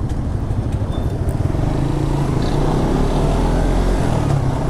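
Suzuki GSX Bandit motorcycle engine running steadily while being ridden, with an even wash of road noise.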